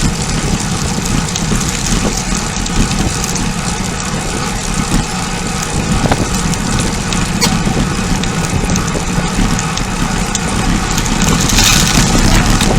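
Steady wind rumble buffeting a bicycle rider's camera microphone at speed, with a brief brighter hiss near the end.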